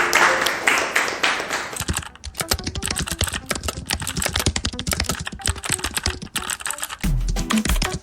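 Computer keyboard typing: a fast, irregular run of key clicks. It opens with a brief rush of noise, and the clicks stand out from about two seconds in.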